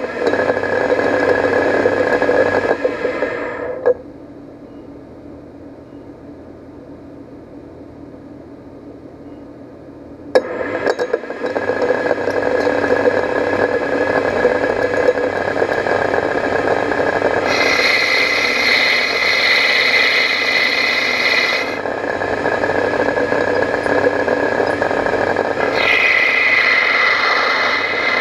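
Lathe spindle turning with the Jacobs rubber-flex collet chuck's locking collar rattling. The rattle falls away to a quieter hum about four seconds in and comes back about ten seconds in, and a higher-pitched whine joins it twice in the second half.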